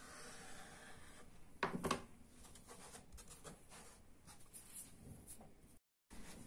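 Kitchen knife scraping through puff pastry onto a wooden cutting board. A sharp knock on the board comes about one and a half seconds in, then light rubs and taps as the cut dough pieces are slid across the board.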